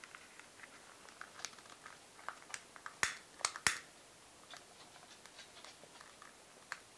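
Long-nosed utility lighter being handled and clicked to light a candle: scattered small clicks and rustles, with three sharp clicks a little after three seconds in.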